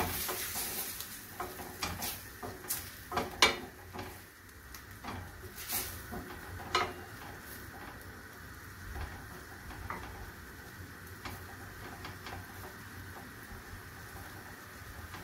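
Shrimp sizzling in a stainless steel frying pan over a gas flame while a wooden spatula stirs them. The spatula scrapes and knocks against the pan, mostly in the first half, then a steady low sizzle goes on with only a few light taps.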